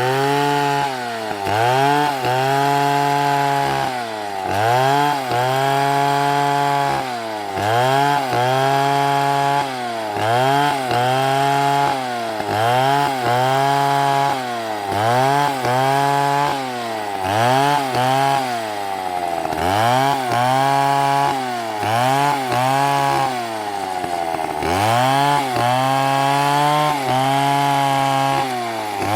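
Two-stroke chainsaw running near full throttle while cutting through a dead palm trunk. Its pitch drops and climbs back about every two seconds as the chain bogs under load and frees up again.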